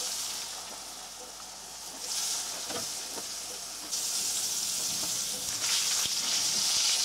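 Flour-dredged carp pieces sizzling in hot vegetable oil in a frying pan, a steady high hiss that grows louder about two seconds in and again about four seconds in as more pieces go into the oil.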